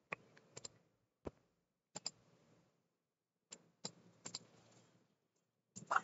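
Faint clicks of a computer mouse and keyboard keys: about a dozen short, scattered clicks, several in quick pairs, as formula text is selected, copied and pasted.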